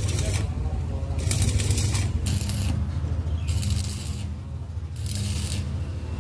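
Stick (arc) welding on a steel truck muffler: the arc crackles and sizzles in short bursts of about half a second to a second, about five times, as the arc is struck and broken to weld up the muffler's broken side. A steady low hum runs underneath.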